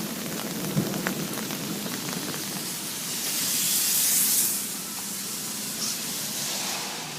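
Rain falling steadily, with a louder rush of hiss that swells about three seconds in and dies back about a second and a half later.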